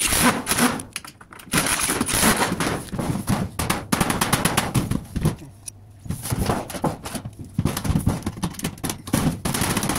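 Sheet-metal valley flashing being handled and bent by hand, clattering and crackling with many quick irregular knocks of the metal.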